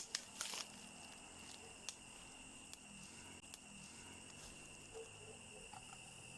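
Crickets chirring steadily in one high, even tone, faint, with a few sharp clicks.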